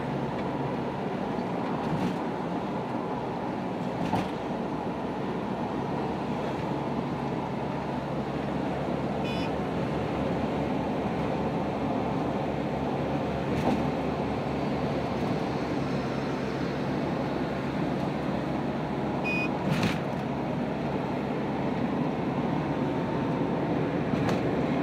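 Steady road and engine noise heard from inside a car's cabin cruising at highway speed, with a few faint clicks.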